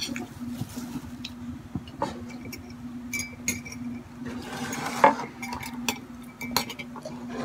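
A thin metal stirrer clinking against a ceramic coffee mug in scattered taps as coffee is stirred, with a brief rustle of plastic wrapping about two-thirds of the way through and a steady hum underneath.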